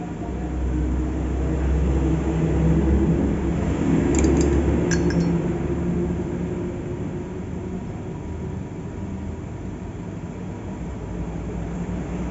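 A steady low mechanical hum that swells for a few seconds before settling, with a few light metallic clinks about four and five seconds in.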